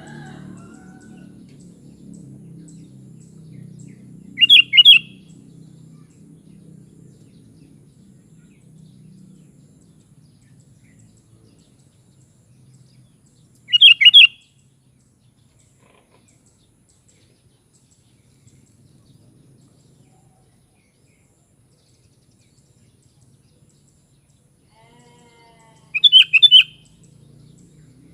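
Sooty-headed bulbul (kutilang) giving three short song phrases, each about half a second long and roughly ten seconds apart.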